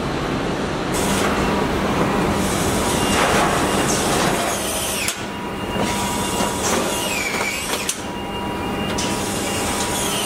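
Car assembly-hall noise: a steady machinery hum and hiss with scattered clanks and a short squeal about two-thirds of the way in. The noise changes abruptly a few times.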